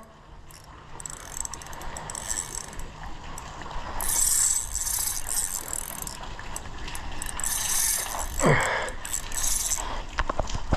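Spinning reel ratcheting and whirring as a freshly hooked mulloway is played on the rod. About eight seconds in there is a short sound that falls in pitch.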